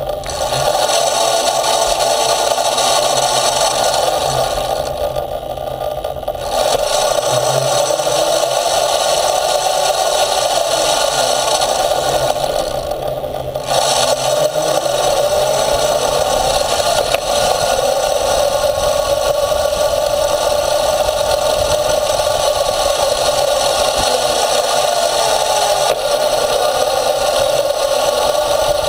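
Electric-motor drive rig running under power on pavement: a motor hum that drifts up and down in pitch over rattling of the frame and road noise from the small wheels. It eases off twice, about five seconds in and again about thirteen seconds in.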